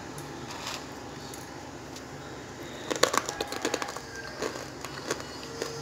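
Crisp deep-fried gram-flour pepper sev crunching: a quick run of sharp crackles about three seconds in, lasting about two seconds, the sound of sev fried well crisp.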